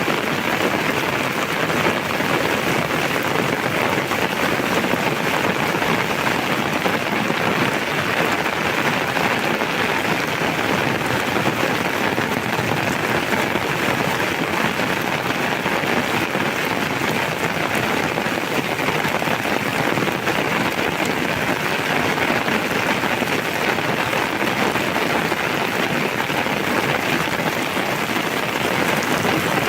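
Heavy rain falling steadily, a loud, even hiss of rain on the ground and surroundings.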